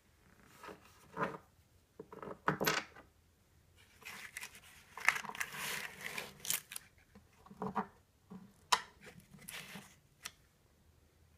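Handling noise from metal lathe accessories in cardboard trays: scattered light knocks and clinks, with a longer stretch of scraping and rustling from about four to seven seconds in.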